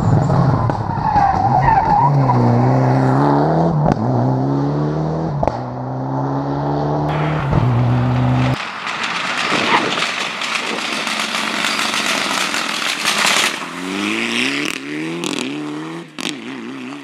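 Rally car engines at full throttle. The first engine's pitch climbs and drops back in steps as it shifts through the gears. About halfway in the sound cuts to several seconds of tyre and skid noise from a car sliding through, and near the end another engine revs up through its gears.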